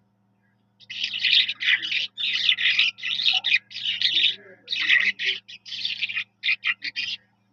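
Skylark singing: a fast, continuous run of high, trilled phrases separated by brief breaks, starting about a second in and ending in a few short separate notes. A faint steady low hum runs underneath.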